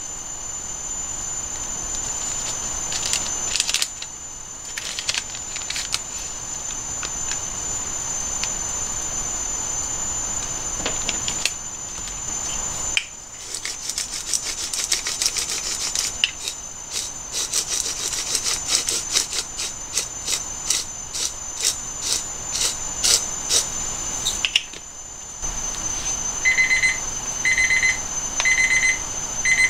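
A handheld sesame grinder is turned over a dish, giving a quick run of dry clicks for several seconds in the middle, over a steady high-pitched tone. Near the end an electronic alarm starts beeping in short repeated bursts, several a second.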